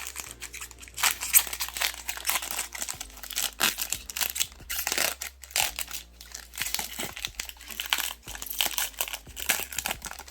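Crinkling and rustling of a trading-card pack wrapper being handled, a dense, irregular run of small crackles.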